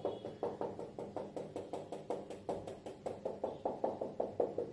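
Whiteboard marker tip tapped against a whiteboard over and over to stipple dots, a quick even run of light taps at about five a second.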